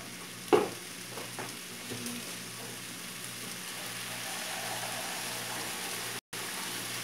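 Diced potato, chayote and carrot sizzling steadily in hot olive oil in a pressure cooker pan. There is a sharp knock about half a second in, then a few lighter clicks.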